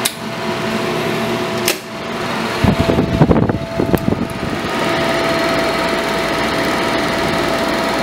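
Steady whir of an electric fan and transmitter cooling air, broken by sharp clicks and a short clatter of knocks about three seconds in as the tube AM transmitter is switched to its high-voltage tap; a low hum joins the steady running after the switching.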